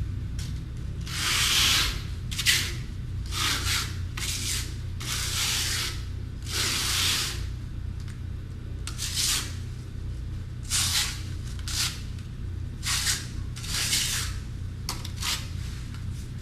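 Repeated scraping strokes of a blade spreading Redgard waterproofing mixed with 70-grit sand over fiberglass mesh, about a dozen strokes at uneven intervals of roughly a second. A steady low hum runs underneath.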